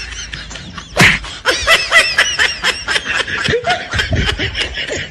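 High-pitched snickering laughter in rapid repeated bursts, about four or five a second, with one sharp loud hit about a second in.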